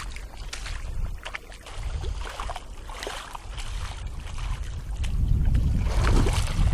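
Wind rumbling on the microphone over shallow surf washing and sloshing at the shoreline, with small splashes, louder over the last couple of seconds.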